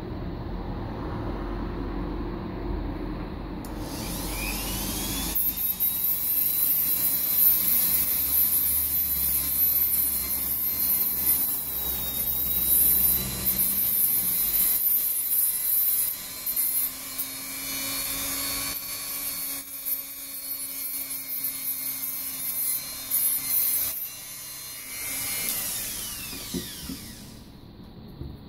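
Handheld rotary tool spinning up about four seconds in to a steady high whine, then grinding on a small metal part, the rasping noise rising and dipping as the bit is pressed on and eased off. Near the end it is switched off and its whine falls in pitch as it winds down.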